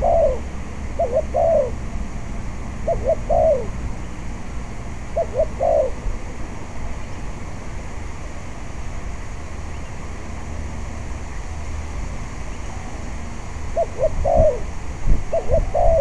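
Spotted dove cooing: phrases of two short notes followed by a longer falling note, four in the first six seconds, then a pause of about eight seconds and two more near the end. Wind rumbles on the microphone underneath, gusting near the end.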